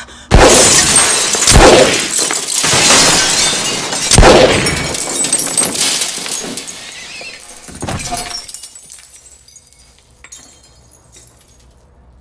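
Gunshots smashing glass cooler doors and bottles in a shop: a run of sudden loud bangs, each followed by glass shattering and showering down. The last comes about eight seconds in, and the crashing then dies away.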